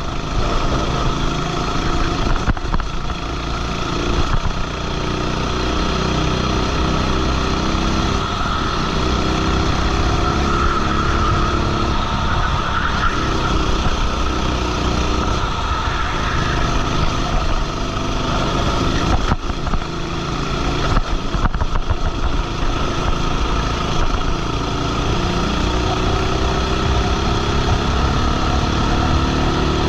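Racing kart engine heard from on board, revving up and dropping back repeatedly as the kart laps the track.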